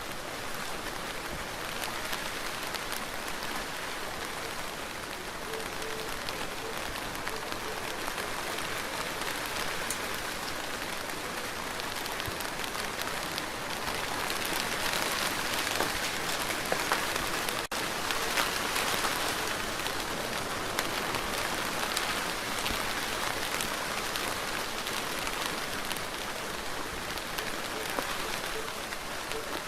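Steady rain falling, an even hiss of many drops that grows a little heavier past the middle, with a split-second break about two-thirds of the way through.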